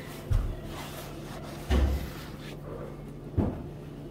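Three dull, low thumps about a second and a half apart, over a steady low hum.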